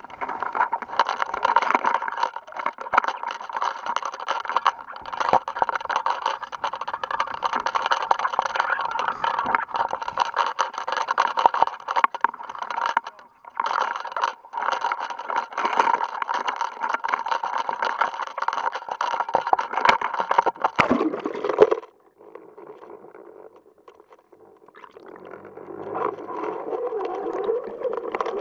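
Handling noise from an action camera on a fishing line, scraping and rattling against the boat as it is carried and swung overboard. About 22 seconds in it cuts off suddenly as the camera goes under, leaving a muffled underwater hush. A low hum rises a few seconds later.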